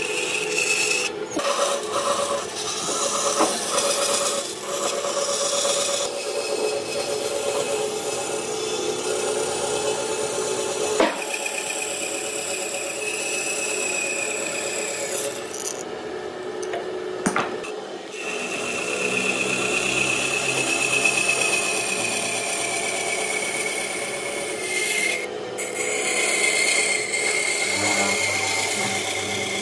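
A power tool working wood: a steady whine over a grinding, rasping noise, broken off briefly a few times.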